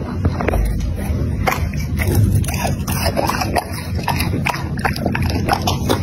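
Golden retriever puppy chewing and biting into peeled mandarins, with many irregular short wet clicks and smacks.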